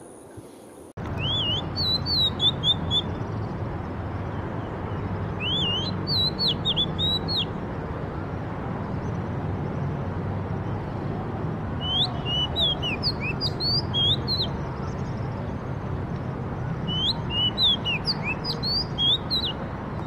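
Oriental magpie-robin singing: four bouts of rapid, varied whistled phrases a few seconds apart, over a steady low rumble.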